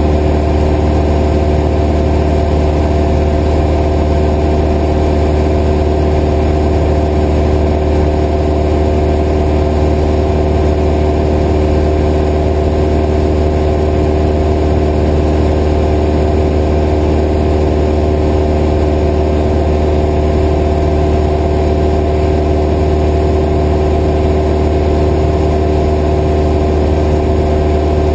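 Single-engine piston airplane's engine and propeller droning steadily in cruise flight, heard inside the cockpit.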